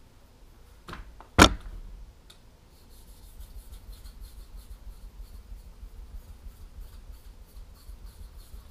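A kitchen knife blade stroked back and forth on a whetstone in a holder, quick even scrapes with fingertip pressure on the blade, at the polishing stage of sharpening. A sharp click about a second and a half in, before the strokes start.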